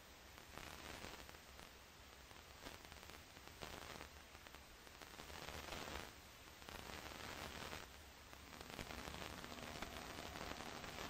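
Faint static-like hiss over a steady low hum, the hiss swelling and fading every couple of seconds.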